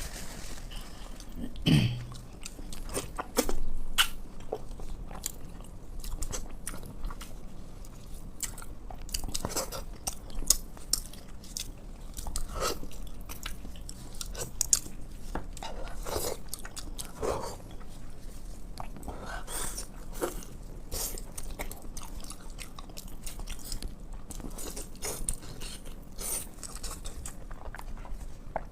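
A person eating close to the microphone: irregular chewing and biting, with frequent wet mouth clicks and smacks, and a short low hum just under two seconds in.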